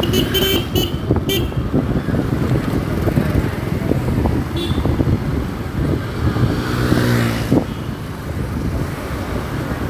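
Riding a motorcycle through city traffic: the engine and road noise under wind buffeting the microphone. There are short high-pitched toots in the first second and a half and once more near the middle, and another vehicle's engine passes close about seven seconds in.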